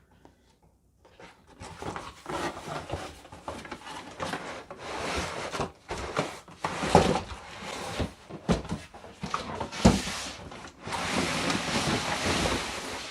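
Cardboard box and packaging being opened and handled: continuous rustling and scraping from about a second and a half in, with two sharper knocks about seven and ten seconds in.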